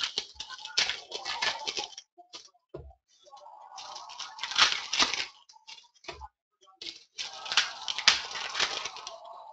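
Plastic trading-card pack wrappers crinkling and crackling as the packs are handled and opened by hand, in three bouts with short pauses between.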